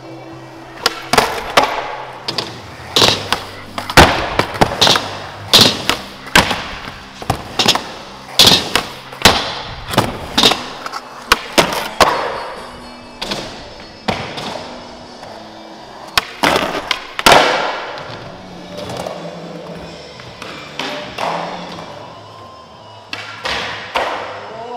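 Music with a stepping bass line, mixed with skateboarding on a concrete floor: wheels rolling and many sharp knocks from the board's pops and landings.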